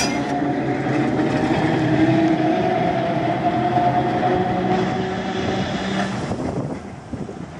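Perley Thomas 900-series electric streetcar running past and pulling away on its rails: a hum at a few steady pitches over the rumble of wheels on track, fading as it moves off near the end.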